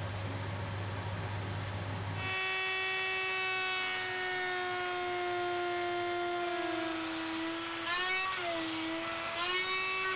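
A low hum, then about two seconds in a table-mounted router starts and runs with a high steady whine. Near the end its pitch dips and wavers twice as the compression flush-trim bit bites into the plywood under load.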